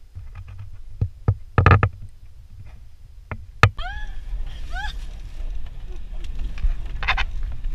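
Heavy low rumble of wind on the microphone and an off-road vehicle, with several sharp knocks in the first few seconds. From about four seconds in, with the vehicle driving over the sand dunes, short rising cries sound over the rumble.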